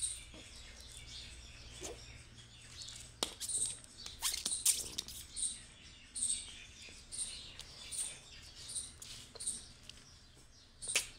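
A rubber balloon being blown up by mouth in a string of short breathy puffs. Near the end a sharp crack: the balloon bursting.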